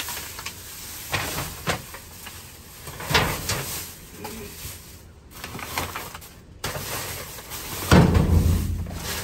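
Plastic trash bags rustling and being shifted about inside a metal dumpster, with scattered knocks and a heavy thump about eight seconds in.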